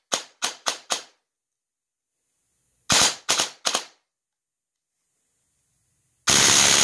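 HK416-style airsoft electric gun with a tappetless cylinder head firing on an 11.1 V battery: four quick single shots, three more about three seconds in, then a continuous full-auto burst near the end. The cyclic rate is around 70 rounds per second.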